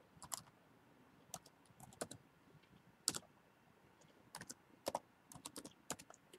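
Typing on a computer keyboard: faint, irregular key clicks, coming closer together in the second half.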